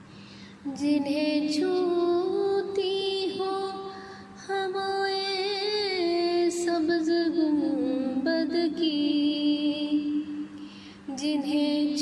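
A woman singing an Urdu naat, a devotional song in praise of the Prophet Muhammad, in long melodic phrases with vibrato. She pauses briefly about four seconds in and again near the end.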